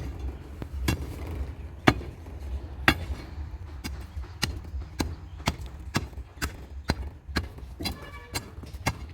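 Hand digging tool repeatedly striking hard ground while pole holes are dug: sharp blows, about one a second at first and then about two a second, over a low steady rumble.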